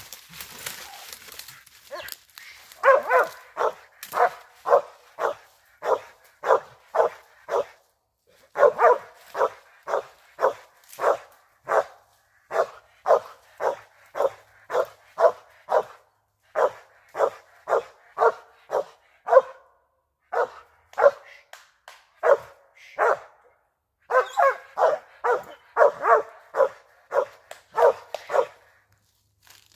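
A squirrel dog barks steadily while rearing up against a tree trunk, its tree bark at a treed squirrel. The barks come about two a second in repeated bouts with short pauses between them. A brief rustling of leaves comes before the barking starts.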